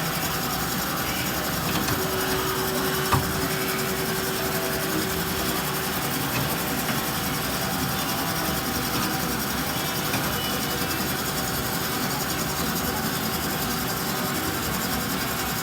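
Cosen C-460NC horizontal band saw running steadily, a continuous machine noise with one sharp click about three seconds in.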